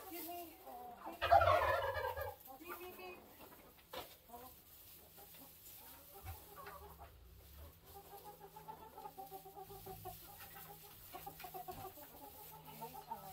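A flock of chickens clucking, with one loud, drawn-out call about a second in, then softer clucks through the rest.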